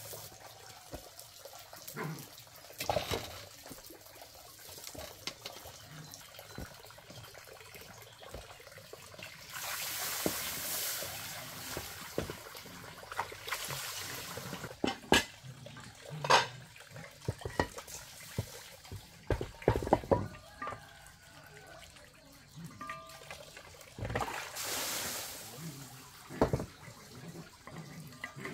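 Water splashing and pouring while pots and a plastic basin are washed, with several sharp clanks of metal pots, some close together near the middle.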